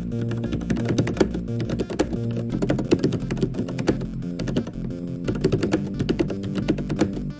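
Fast typing on a mechanical keyboard: a dense, unbroken run of key clicks over background music.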